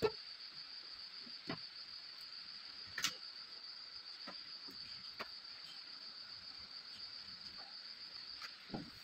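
Light clicks and taps from wires and component leads being handled on a hand-wired amplifier board: a sharp one right at the start, another about three seconds in, and softer ones between. A steady high-pitched trill runs underneath throughout.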